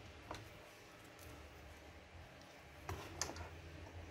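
Power-supply cable plugs being pushed into the sockets of a modular PC power supply: a few scattered plastic clicks, about four in all, two of them close together near the end.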